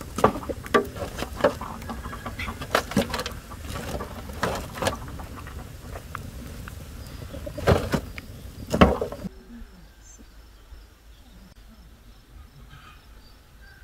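Wood fire crackling and popping in an irregular run of sharp snaps, with two louder pops near the end of it. About nine seconds in the sound cuts to a quiet outdoor scene with faint bird chirps.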